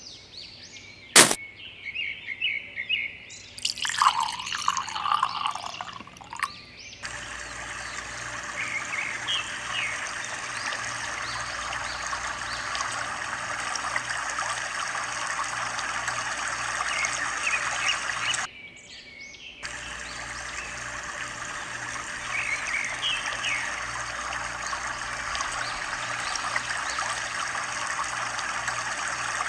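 Water trickling steadily, with birds chirping over it. Before that, a sharp click about a second in and a short splashing patch.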